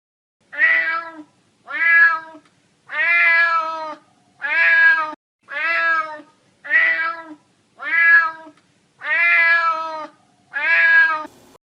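Domestic cat meowing nine times in a row, each meow under a second long and evenly spaced.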